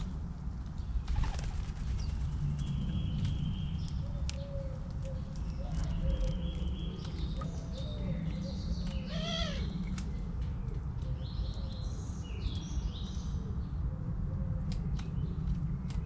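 Small birds chirping now and then, with faint low cooing from doves and a quick wavering trill about nine seconds in, over a steady low rumble.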